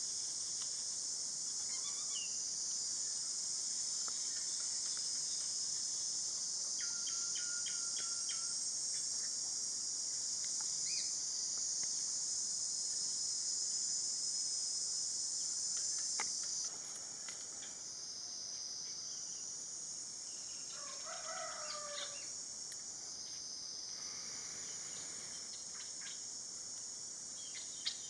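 Steady, high-pitched chorus of insects such as crickets, a little quieter from about two-thirds of the way through. Faint bird calls sound now and then beneath it, including a short crowing-like call near the end.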